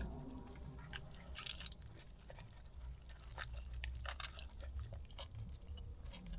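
A person chewing charcoal-grilled barbecued chicken: faint, irregular wet clicks and smacks of the mouth.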